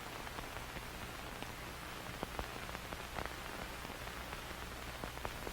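Faint steady hiss with many small, irregular clicks and crackles.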